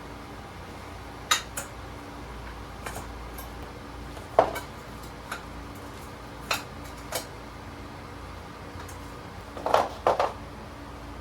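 Scattered sharp metallic clinks and knocks of steel pieces or tools being handled, about ten of them, with the loudest about four seconds in and a quick cluster near the end, over a faint steady hum.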